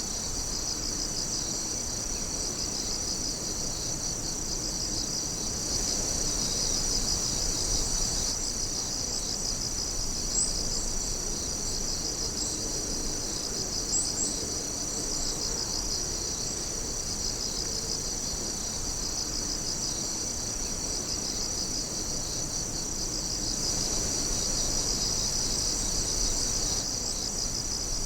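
A steady chorus of crickets chirping at night, several insects trilling at once in repeating high pulses, with a couple of short, higher chirps partway through.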